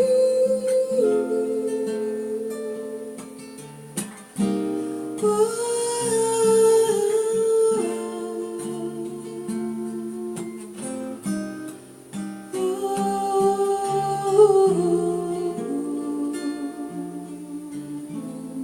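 Acoustic guitar playing a slow instrumental passage of a song, plucked and strummed notes ringing over held bass notes.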